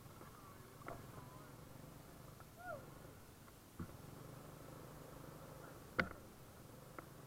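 Faint, steady low hum of a motorbike running while riding, with several sharp knocks, the loudest about six seconds in, and a short squeak that glides up and down a little before three seconds.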